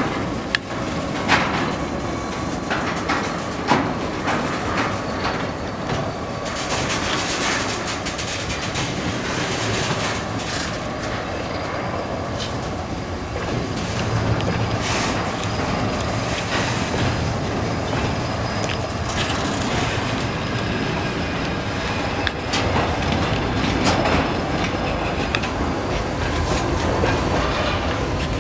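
Freight wagons, empty flat cars and a tank car, rolling past on the rails: steel wheels clacking over rail joints with scattered sharp knocks, and a faint steady squeal from the wheels.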